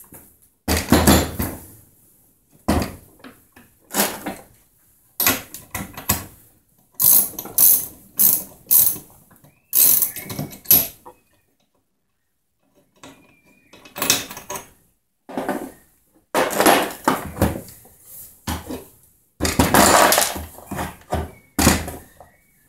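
Chainsaw being handled and taken apart: irregular bursts of plastic and metal clattering and clicking as its bar, chain and side cover are worked loose, with short pauses between.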